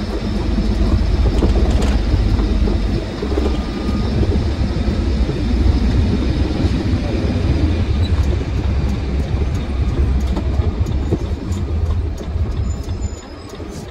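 Truck engine and tyre rumble heard from inside the cab while driving along a highway, a steady low drone that eases off and gets quieter near the end.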